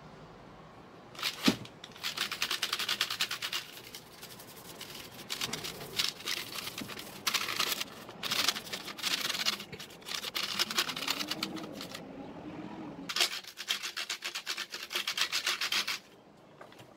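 Rapid back-and-forth scrubbing on the hard plastic of a computer keyboard during cleaning. It comes in bursts of one to three seconds with short pauses between them, and there is one sharp knock about a second and a half in.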